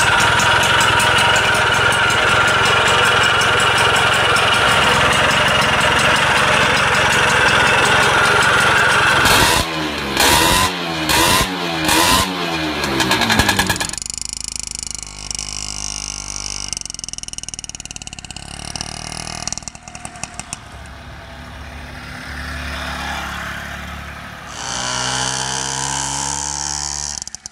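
Moto Guzzi Motoleggera 65's small single-cylinder two-stroke engine running steadily, then revved in four short blips about ten seconds in. It is then heard more quietly, and near the end its pitch rises as the bike accelerates away.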